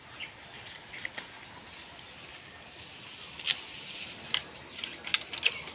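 Lemongrass stalks rustling as a clump is harvested by hand, with a few sharp, crisp snapping clicks from the stems.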